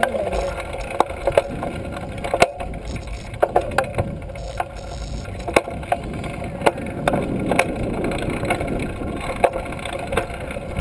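Trail-a-bike rolling along, heard from a handlebar-mounted camera: the handlebar and frame rattle, giving irregular sharp clicks and knocks over a steady hum and low rumble of riding noise.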